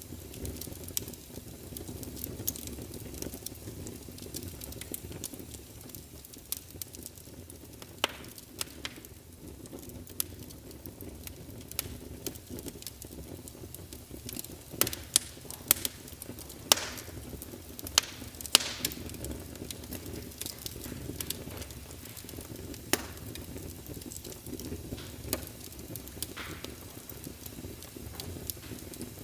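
Wood fire crackling, with irregular sharp pops and snaps over a steady low rumble; the loudest pops bunch together in the middle.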